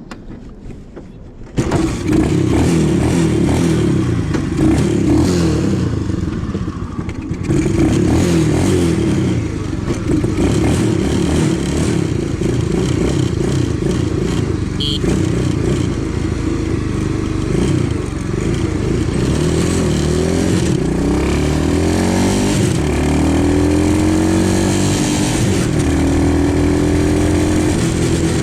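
X15 super pocket bike's engine, coming in abruptly about a second and a half in, then revving up and down as the bike is ridden, its pitch repeatedly climbing and dropping through the gears.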